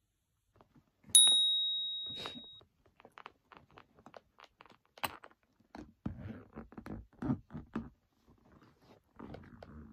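A single bright ringing ping about a second in, dying away over a second and a half, followed by scattered clicks, knocks and thunks of a hard-shell suitcase being handled, with rustling starting near the end.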